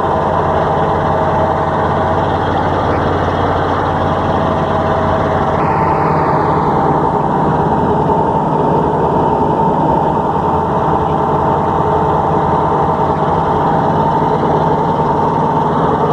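A motor vehicle's engine running steadily with a constant hum, shifting slightly in tone about five and a half seconds in.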